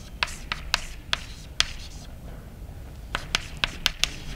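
Chalk tapping and scratching on a blackboard during writing: a run of sharp clicks in the first second and a half, a pause, then a quicker cluster of clicks near the end.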